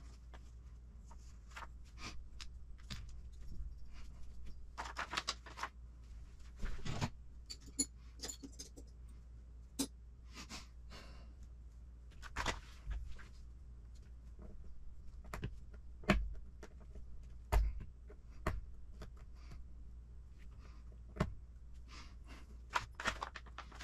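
Scattered small clicks and taps of plastic and metal RC kit parts being handled and set down on a work mat.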